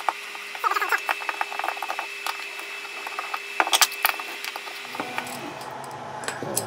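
Small metallic clicks and rattles as the screws and cover of a small metal enclosure are worked loose and lifted off, with a sharper cluster of clicks about four seconds in.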